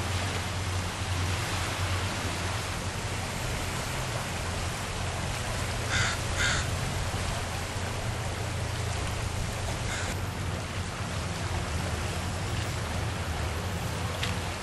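Steady outdoor rushing noise with a low rumble, with two short bird calls in quick succession about six seconds in and one more around ten seconds.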